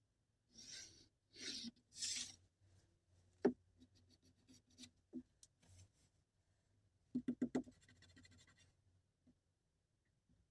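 Three short scratchy rubbing strokes, then a single sharp knock, scattered small clicks and a quick run of about five taps followed by light rustling.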